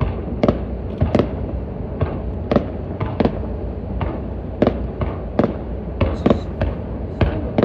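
Fireworks shells bursting: about a dozen sharp bangs at irregular intervals over a steady low rumble.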